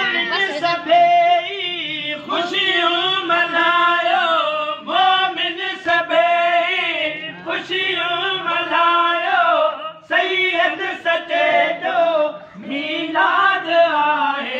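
Men singing a Sindhi molood, a devotional song in praise of the Prophet, together and without instruments. The long held phrases are broken by brief pauses a few times.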